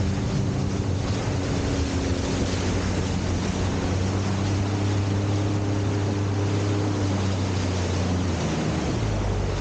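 Jet ski engine running at a steady cruise under a heavy rush of wind and water noise. The engine note shifts slightly about nine seconds in.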